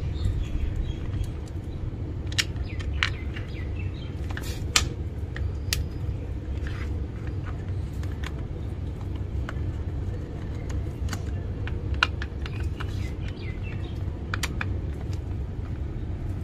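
Scattered sharp clicks and ticks of a screwdriver working screws out of an electric drill's plastic housing, with plastic and metal knocking as the drill is handled, over a steady low rumble.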